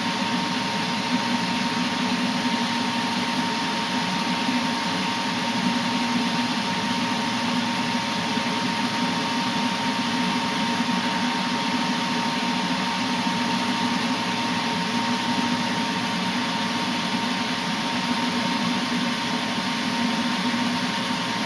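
Gas furnace's draft inducer fan running steadily, a constant whir with a thin high whine, during the furnace's start-up sequence before the burner lights.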